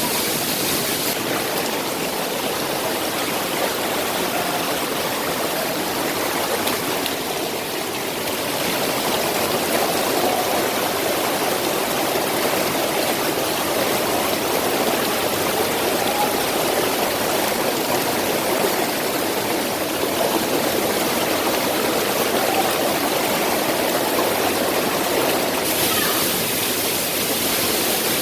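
Waterfall: falling water rushing steadily, a dense even hiss with no let-up.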